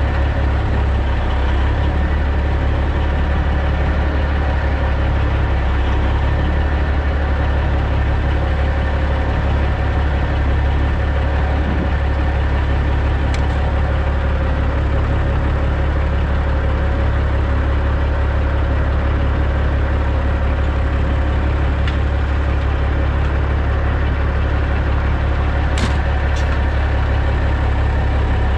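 The CAT C15 diesel of a 2006 Peterbilt 379 runs steadily at a low idle while the truck reverses slowly. Three short clicks stand out over it, one about halfway and two close together near the end.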